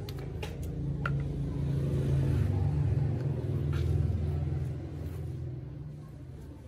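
Low engine rumble of a passing motor vehicle, swelling to its loudest a couple of seconds in and then fading.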